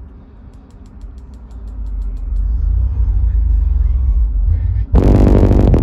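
Single 10-inch subwoofer in a fourth-order bandpass enclosure playing deep bass from a song, growing louder over the first two seconds. About five seconds in, the rest of the song comes in loud and full on top of the bass.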